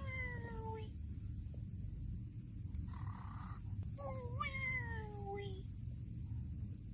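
Cartoon snoring sound effect: a short breathy inhale, then a whistling exhale that slides down in pitch, heard twice, over a steady low rumble.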